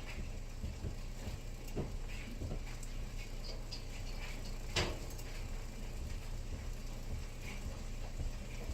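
Knife slicing an onion on a cutting board: scattered, irregular taps with one sharper knock about five seconds in, over a steady low hum.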